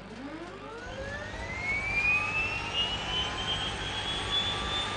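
Aircraft turboprop engine starting: a turbine whine climbs steeply in pitch over the first two to three seconds and then levels off into a steady high whine, with a low rumble coming in about a second in as the engine lights up and spools to idle.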